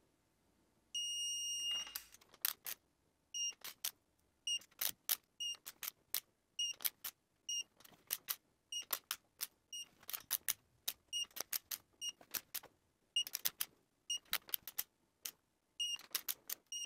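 Ratcheting torque wrench tightening cylinder head bolts on a Mercedes M120 V12 to the first 55 Nm stage: a run of sharp metallic ratchet clicks, many followed by a brief ringing tone. A steady beep lasts about a second, about a second in.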